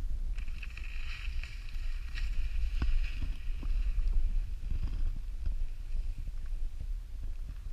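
Wind buffeting the camera microphone with a steady low rumble, over the hiss of skis sliding on packed snow that fades after about three seconds as the skier glides away.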